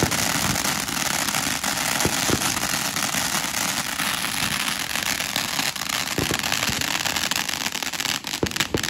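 Ground firework spraying sparks, crackling and hissing continuously with a few louder pops. The crackles grow sparser near the end as it burns down.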